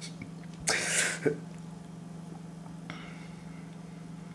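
A short breathy noise from a man close to the microphone about a second in, over a steady low hum.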